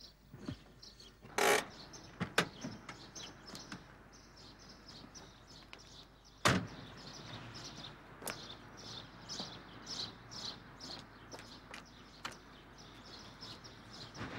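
Small birds chirping continually outdoors, with a few sharp knocks and a loud thump about six and a half seconds in.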